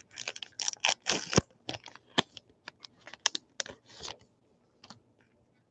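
Trading card pack wrapper being torn open and crinkled by hand: a quick run of sharp crackling rustles that stops about five seconds in.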